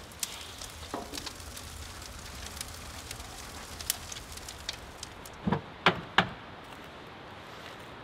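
Wood fire crackling, with scattered small snaps and three louder pops a little past the middle.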